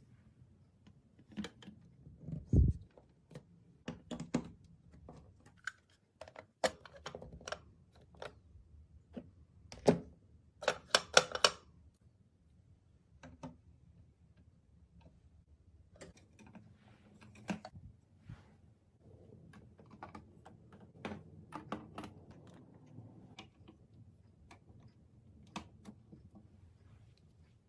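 Plastic marble run pieces being handled and fitted together: scattered hard clicks and knocks, with a dull thump about two and a half seconds in and a quick rattle of clicks about eleven seconds in.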